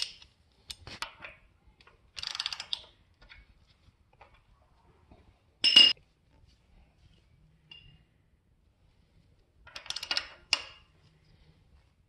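Metal hand tools clicking and clinking in a few short bursts, the loudest a sharp ringing clink about six seconds in, as a socket and ratchet are fitted to the crankshaft bolt to turn the engine toward top dead center.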